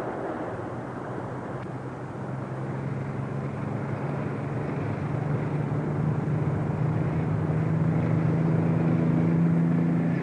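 A motor vehicle approaching, its engine hum and road noise growing steadily louder over several seconds.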